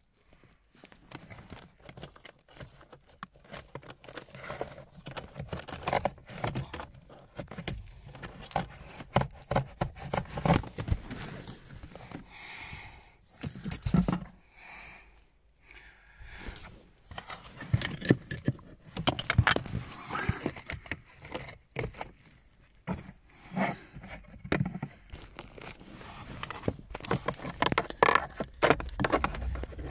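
A screwdriver and gloved hands working at the plastic pollen filter housing under a car's dashboard: irregular clicks, scrapes and rattles of metal on plastic, with a stretch of rustling about halfway through.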